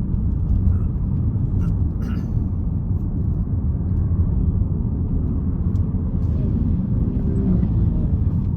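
Car road noise heard from inside the cabin: a steady low rumble of tyres and engine on a rough, broken road surface.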